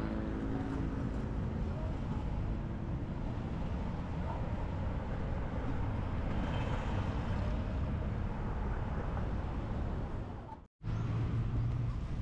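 A motor vehicle running with steady low engine rumble and road noise. The sound cuts out completely for an instant near the end, then the engine hum returns.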